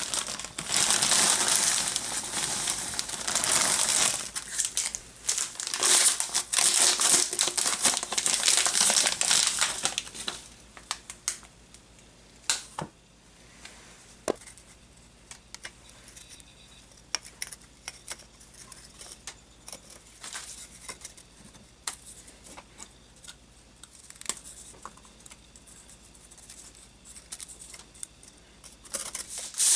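Wrapping being crumpled and torn, a dense crinkling rustle for about the first ten seconds, then scattered small clicks and taps.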